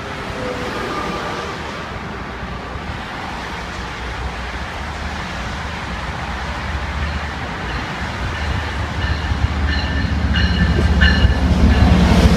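MBTA HSP46 diesel-electric locomotive pulling a commuter train into the station, its engine rumble and rail noise growing louder as it approaches and passes. Short high-pitched squeals come from the wheels about nine to eleven seconds in as it slows, then the coaches roll past.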